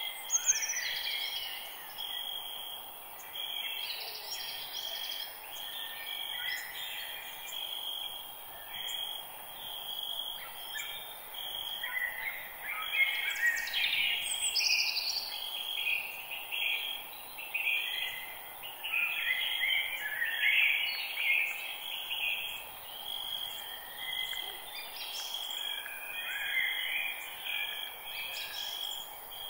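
Forest ambience of several birds singing and chirping, overlapping phrases throughout, with an evenly repeated high note running underneath and a faint steady background hiss.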